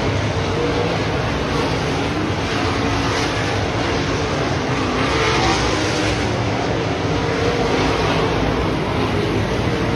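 Several dirt-track race cars running laps together, their engines droning with pitch rising and falling as they go around the track.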